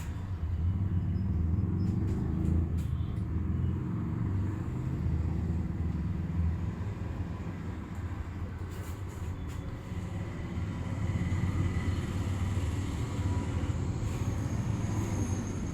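Steady low background rumble with a few faint, soft clicks.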